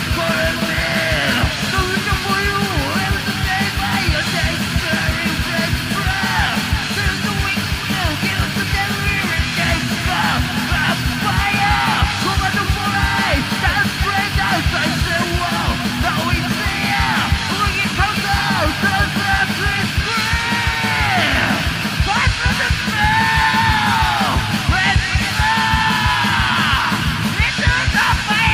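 Background music: a fast, loud rock song with yelled vocals over dense, driving drums.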